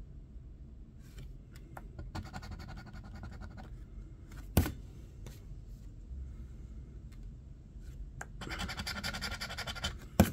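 Scratching the silver latex coating off a lottery scratch-off ticket, in two bursts of rapid back-and-forth strokes about two seconds in and again near the end. A single sharp tap comes between them.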